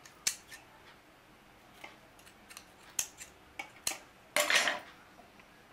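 Tailor's scissors snipping through fabric piping cord, several short sharp snips a second or so apart as the piping is cut into pieces. A longer, louder noise comes about four and a half seconds in.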